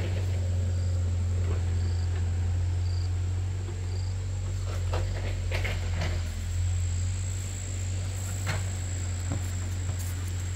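Insects shrilling in a steady high-pitched drone, with a short chirp about once a second for the first few seconds, over a steady low rumble. A few sharp knocks come around the middle and once more later.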